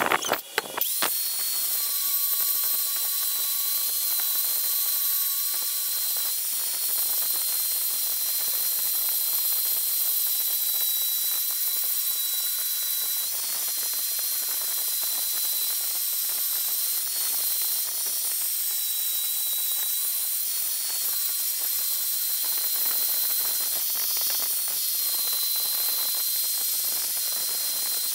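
Handheld angle grinder running with its abrasive disc pressed against the rusty steel blade of an antique meat cleaver, grinding off the rust: a steady high hiss with a thin whine over it. It starts about a second in.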